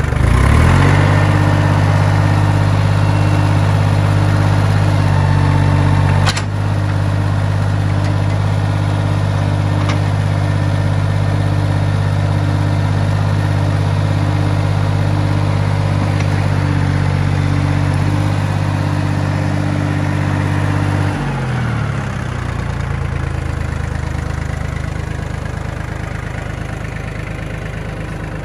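Yanmar FX22D compact tractor's three-cylinder diesel engine revved up just after the start and held at a steady high speed for about twenty seconds, then throttled back to a lower idle. A single sharp knock sounds about six seconds in.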